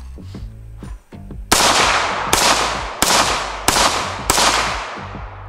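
Five quick semi-automatic shots from a 5.56 AR-15 rifle fitted with an Ultradyne Apollo Max compensator, starting about a second and a half in and spaced roughly two-thirds of a second apart. Each sharp crack is followed by a long fading echo.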